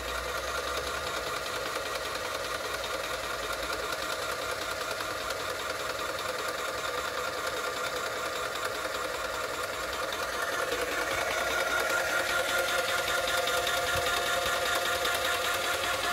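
Graco airless paint sprayer's electric piston pump running steadily while it primes, drawing water up the suction hose and forcing air out through the return hose. It grows a little louder about ten seconds in.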